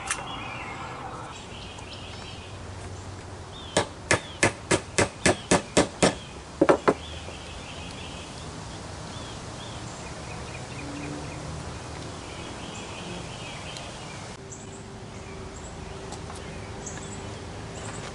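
A hammer tapping a homemade wooden fishing-reel handle: eight or nine light blows at about three a second, then two more in quick succession. Birds chirp in the background.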